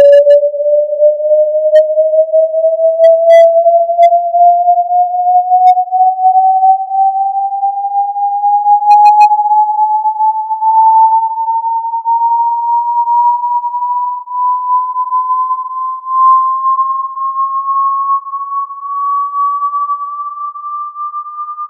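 A single pure electronic sine tone, gliding slowly and evenly upward in pitch.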